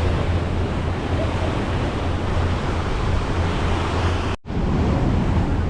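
Wind rushing over the microphone on a moving boat's deck, a steady noise heavy in the low end, with water noise underneath. The sound cuts out for a split second about four and a half seconds in.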